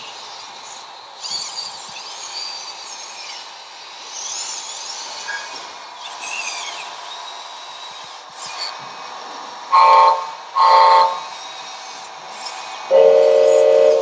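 Small electric motors and gearboxes of RC construction models whining, rising and falling in pitch. Then an RC truck's electronic horn sounds two short honks and, near the end, a long blast.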